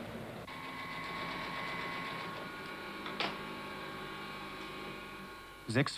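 Industrial sewing machine in a millinery workroom running with a steady hum, with a single sharp click about three seconds in.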